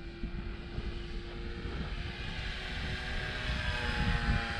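Twin electric motors and propellers of an E-flite Beech D18 RC plane whining in flight, the pitch rising near the end.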